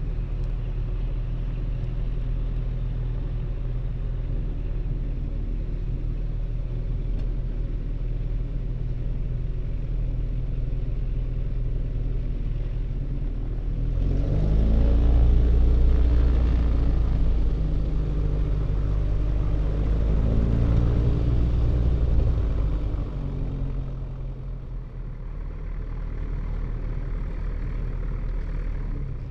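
Single-engine Van's RV light aircraft's piston engine and propeller running at low taxi power. About halfway through the power comes up with a rise in pitch and loudness, holds for several seconds, then eases back to a steady low setting.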